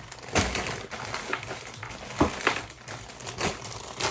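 Plastic bags of Lego pieces being handled, crinkling, with a few sharp knocks and rattles from the pieces inside.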